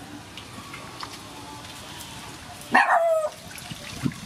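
Giant sea snails being handled and rinsed in a metal basin of water, with faint splashing and light knocks. About three seconds in, a single loud, short yelp that falls in pitch.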